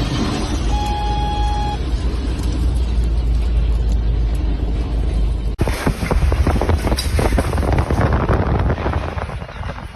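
Storm wind blowing hard across the microphone, with heavy low rumble, and a brief single-pitched tone about a second in. About halfway through the sound cuts abruptly to a harsher crackling noise full of sharp ticks.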